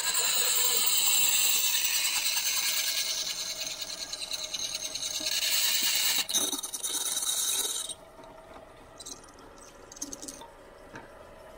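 Pedestal drill press boring a hole through a stainless steel spoon lure blank: a loud, high-pitched grinding of the bit cutting metal. After about eight seconds it suddenly drops away to a quieter, steady hum of the drill running.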